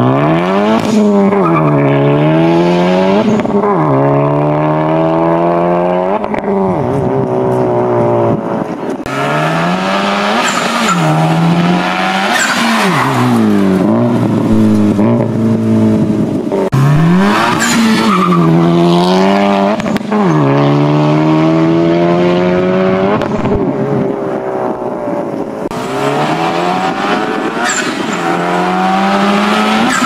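Honda FK8 Civic Type-R's turbocharged 2.0-litre four-cylinder through a valvetronic catback exhaust with catless downpipes, accelerating hard in repeated pulls: the exhaust note climbs in pitch and drops suddenly at each upshift, over and over. A few sharp cracks sound along the way.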